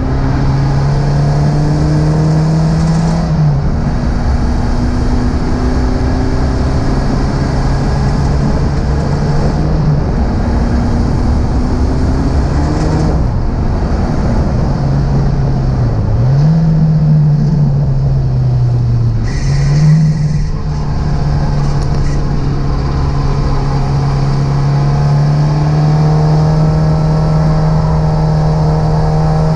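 Renault 5 Alpine Turbo's turbocharged four-cylinder engine running hard under load. Its pitch steps down and climbs again several times with gear changes and brief lifts, over a steady rush of wind and road noise.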